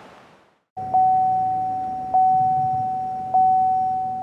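Edited-in transition sound: a single high electronic tone, re-struck three times about a second apart and fading after each strike, over a faint low hum.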